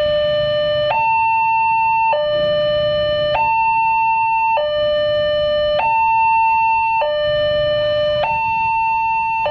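Railway level-crossing warning alarm sounding a loud electronic two-tone signal, switching between a lower and a higher tone about every 1.2 seconds, as the crossing barriers come down for an approaching train.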